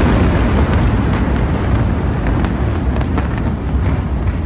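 Aftermath of a massive chemical explosion: a loud, rolling rumble and roar slowly dying away, peppered with sharp crackles and pops from burning, sparking debris.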